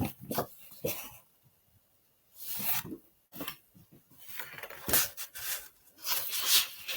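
Sheets of thick printed card sliding and rubbing against each other as they are handled, in several separate swishes with a few light clicks.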